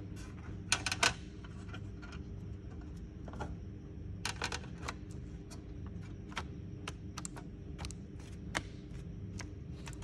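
Irregular light clicks and taps on a laptop's plastic case, with a cluster of louder clicks about a second in and another about four seconds in, over a steady low hum.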